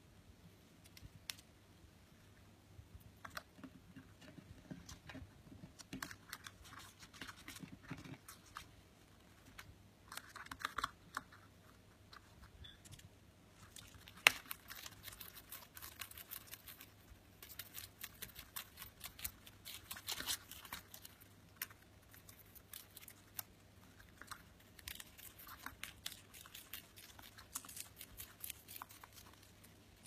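Rosy-faced lovebird tearing and shredding a sheet of paper with its beak: irregular small clicks and crackly tearing, coming in busier bursts from about the middle on.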